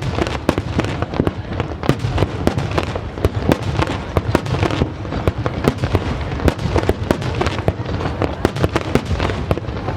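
Fireworks finale: a dense barrage of shells bursting, many sharp cracks and booms a second over a continuous low rumble.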